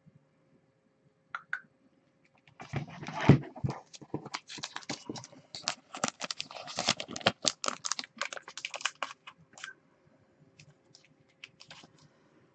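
Crackling and clicking of thin clear plastic around a trading card being handled close to the microphone, with a louder knock about three seconds in, then a few scattered ticks near the end.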